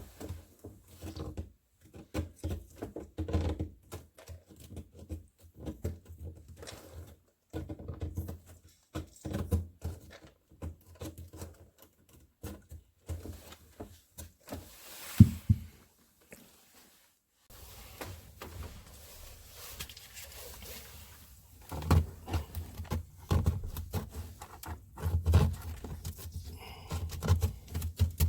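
Irregular close-up knocks, taps and clatter of hands handling parts, with one sharp loud knock about fifteen seconds in and heavier, busier knocking in the last few seconds.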